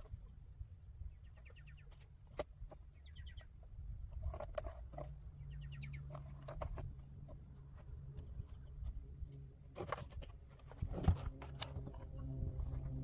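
Faint outdoor ambience with scattered clicks and a few short, rapid bird chirps. A second or two before the end, a chainsaw engine starts and runs steadily.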